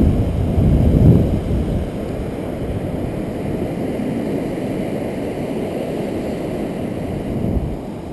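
Wind buffeting the microphone, a low rumbling noise that comes in gusts for the first couple of seconds and then settles to a steady level.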